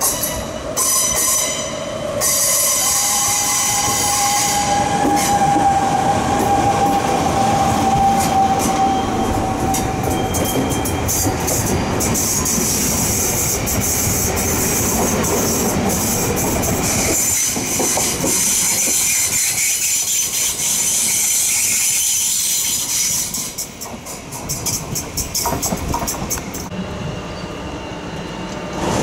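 NS double-deck electric train pulling into a station platform: steady wheel and rolling noise with rhythmic clacks over the rail joints, and a long high squeal from the wheels a few seconds in that sinks slightly in pitch before fading.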